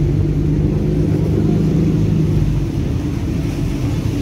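A passenger ferry's engine running as the boat comes alongside the pier, a steady low drone. A deeper tone sets in at the start and eases off about halfway through.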